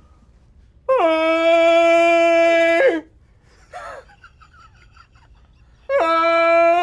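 A person's voice imitating a cow's moo: two long held calls of about two seconds each, a few seconds apart, each starting with a quick drop in pitch and then holding steady.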